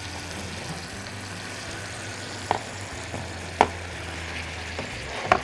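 Salmon fillets frying in a lemon-paprika sauce in a frying pan, a steady sizzle, with a few short clinks as the pan is picked up off the hob.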